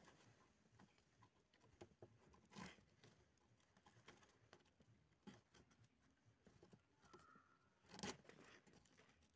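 Near silence with faint rustles and light taps from a hand and a rope being worked between bamboo bed slats, a little louder twice, once about two and a half seconds in and once near the end.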